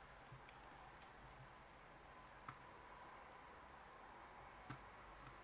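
Near silence with two faint clicks, like small parts or a tool being handled on a bench.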